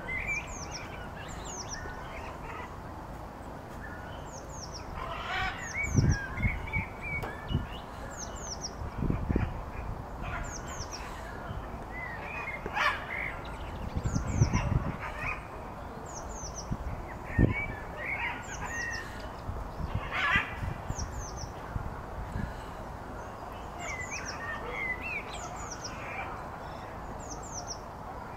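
Wild birds calling and singing: short, high chirps that sweep downward and repeat all the way through, with some louder calls between them. Now and then low thumps and rumbles, the loudest sounds, cut across them.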